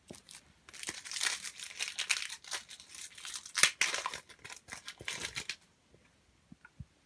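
A Panini FIFA 365 Adrenalyn XL trading-card booster pack being torn open, its wrapper crinkling and tearing in a run of crackly bursts that stops about a second and a half before the end.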